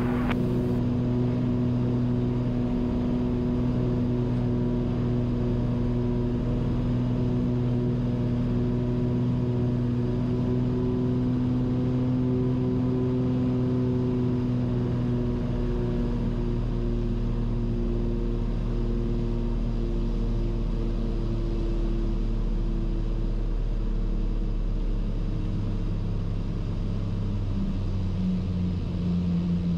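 Cessna 340's twin piston engines and propellers droning steadily in the cabin on final approach. The engine tone eases and shifts about halfway through as power comes back. Near the end a new tone comes in as the plane settles onto the runway.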